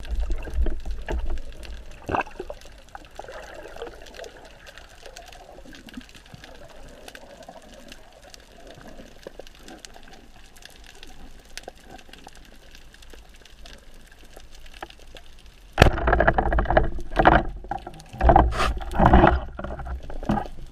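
Underwater sound through a camera housing on a speargun: water rushing over the housing at first, then a quieter glide full of faint crackling clicks. About three-quarters through comes a sudden sharp crack, followed by loud bursts of water turbulence and handling noise.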